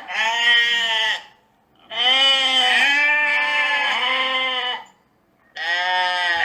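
Sheep bleating: three long bleats, the middle one the longest and wavering in pitch.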